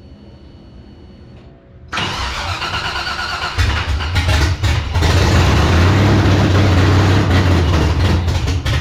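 The LS V8 in a swapped 1984 Oldsmobile Cutlass is cranked about two seconds in and fires, then keeps running and gets louder again around five seconds in. It is trying to idle with its throttle-body idle screw opened up to let in more air, on an untuned Holley Terminator X EFI.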